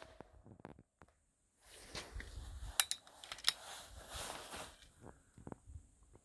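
Rustling handling noise for about three seconds, with two sharp clicks in the middle, between shots of an air rifle.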